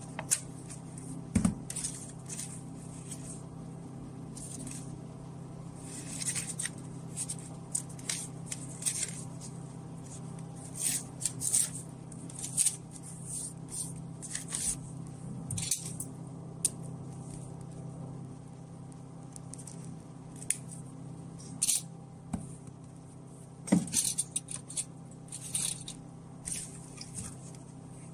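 Paper slips and a sheet of paper being handled and folded, rustling and crinkling in many short bursts over a steady low hum.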